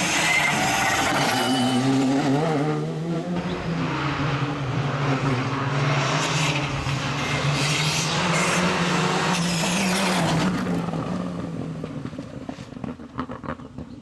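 Rally car engine running hard at a steady high pitch for about ten seconds, then fading away over the last few seconds as the car moves off.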